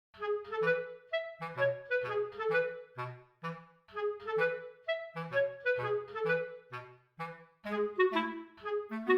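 Background music: a light, bouncy instrumental tune of short, evenly paced notes, a melody over a simple bass line.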